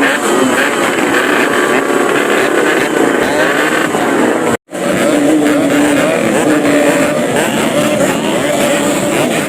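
Several Yamaha RX-King single-cylinder two-stroke motorcycle engines revving at once, throttles blipped so the pitch keeps rising and falling. The sound cuts out completely for a moment about halfway through.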